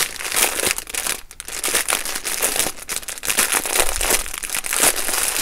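Clear plastic bag crinkling in a dense run of sharp crackles as hands pull it open and off a long strip of packaged diamond painting drills, with a short lull about a second in.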